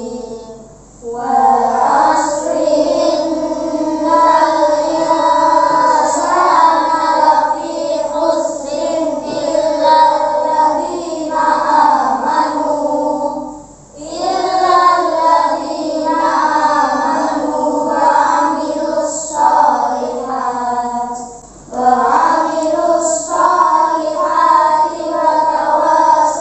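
A class of schoolchildren chanting a prayer in unison, with the teacher's voice among them, in long sung phrases that break for a breath about a second in, midway through and again later.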